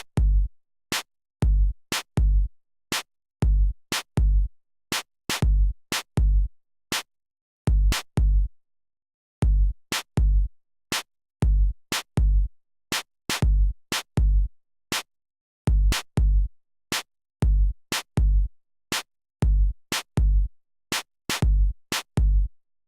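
A sparse electronic drum-machine beat: deep kick-drum thuds and sharp higher hits repeating in a steady pattern, with silent gaps between the hits and no other instruments.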